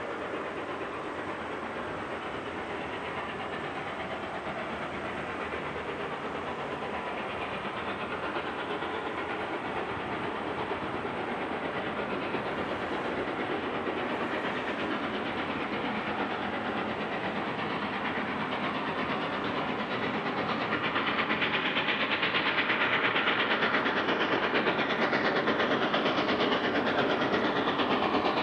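Steam locomotive working a train, its exhaust and running gear a steady rushing noise that grows louder over the last several seconds as it approaches.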